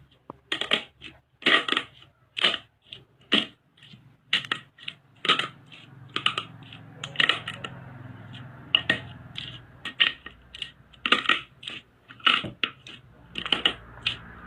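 Slime being squeezed and poked by hand, making short, sharp sticky pops and clicks at an irregular pace, about one or two a second.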